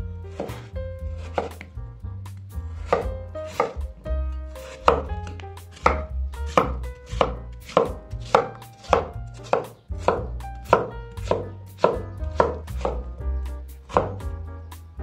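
Steel cleaver chopping raw peeled potatoes on a wooden cutting board: sharp knocks of the blade against the board, about two a second, in a steady rhythm.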